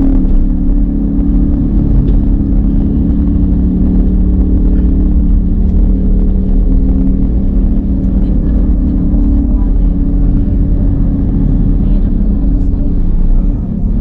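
A car being driven at a steady pace: a constant low rumble of engine and road noise, as picked up by a dash cam inside the car.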